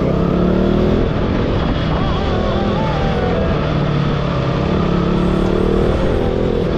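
KTM RC 200's single-cylinder four-stroke engine pulling through the gears: the revs rise, drop about a second in, then climb again from about three seconds in and ease off near the end.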